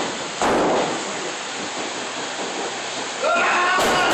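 Steady, loud, rushing din from the crowd and room at a small wrestling venue. A sudden loud bang comes about half a second in, and a spectator shouts near the end.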